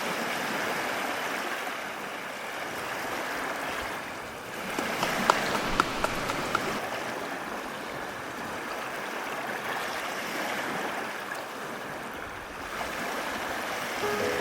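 Stream water rushing steadily, with a few short sharp splashes about five to six and a half seconds in.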